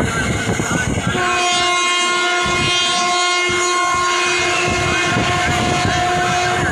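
A train horn sounds one long steady blast starting about a second in, over the rumble of the moving train.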